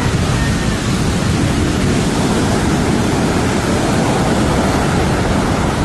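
Heavy ocean surf: large waves crashing, heard as a loud, steady, unbroken rush of noise with no single distinct break.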